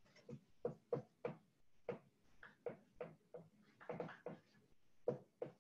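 Dry-erase marker writing on a whiteboard: a string of short, separate marker strokes, two or three a second, at an uneven pace.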